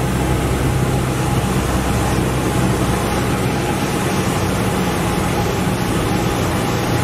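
A Cessna 172N's four-cylinder Lycoming O-320 engine and propeller droning steadily in flight, heard from inside the cabin, with a constant low hum and airflow noise.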